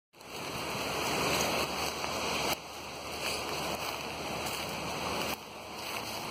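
Wind rushing over the microphone, a steady noise that drops suddenly about two and a half seconds in and again near the end.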